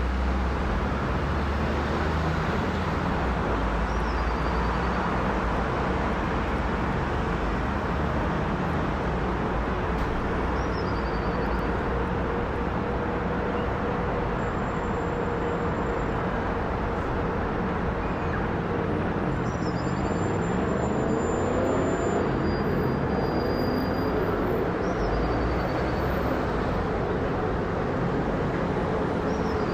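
Boeing 777-200ER's twin jet engines at takeoff thrust as the airliner lifts off and climbs out: a steady, loud rushing noise with a faint tone that slowly shifts in pitch. A bird gives a short falling chirp every several seconds.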